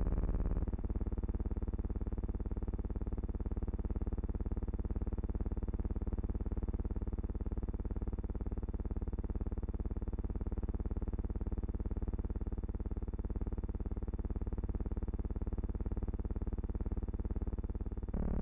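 A steady low buzzing hum with many overtones, changing in tone abruptly just after the start and again near the end.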